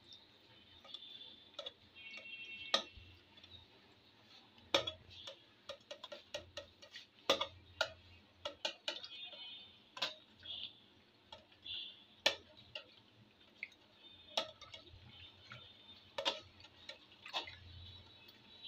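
Wire whisk stirring soaked tapioca pearls into milk in a glass bowl, its wires clicking and tapping irregularly against the glass.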